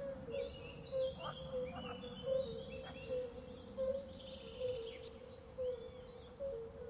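Birds chirping and trilling over a steady low hum, with short low notes repeating about twice a second; no lion roar.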